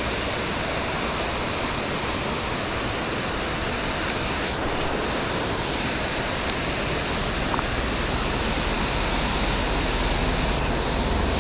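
Waterfall rushing steadily, an even wash of falling water, with a low rumble building in the bass near the end.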